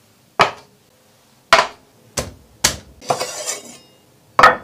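Knife chopping through a lobster's shell on a wooden cutting board: five sharp strikes, with a longer crackling stretch of shell breaking about three seconds in.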